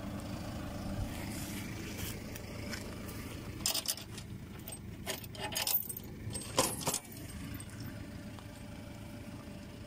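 Fendt 310 tractor engine idling steadily, with three short spells of light metallic jangling between about four and seven seconds in.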